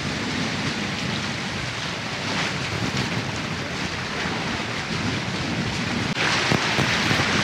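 Steady rush of wind on the microphone mixed with water noise from a Leopard 45 catamaran's hulls under sail. It gets louder and brighter about six seconds in.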